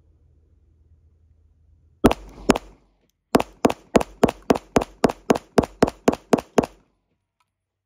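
Glock 49 9mm pistol firing at a target: two shots about half a second apart, then after a short pause a fast string of about thirteen shots, nearly four a second, that then stops.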